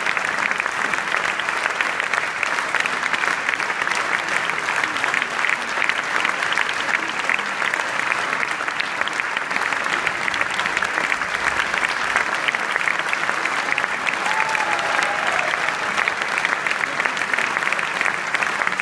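Theatre audience applauding steadily: a dense, even mass of hand claps.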